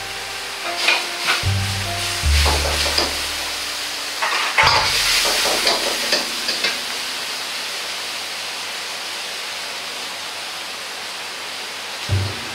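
A metal ladle stirring and scraping a saucy stir-fry in a wok, with clicks and scrapes over the first few seconds and a few more right at the end, over a steady rushing hiss of the gas burner and the simmering sauce.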